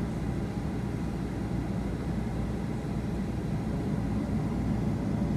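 Steady low rumble inside the cabin of a Boeing 737-900ER taxiing after landing, its CFM56 jet engines at idle, with a faint steady hum over the noise.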